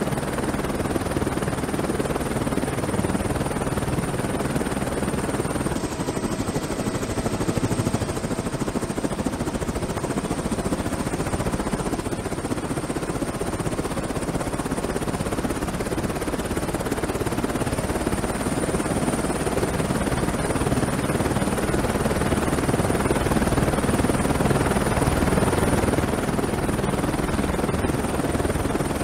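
Helicopter running steadily, given as a Black Hawk: a low rotor sound under a thin, high, steady whine.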